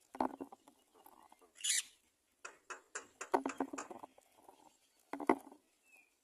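Rustling and scuffling in a bird's nest, with a brief raspy squeak from a nestling about a second and a half in and a few short faint chirps near the end.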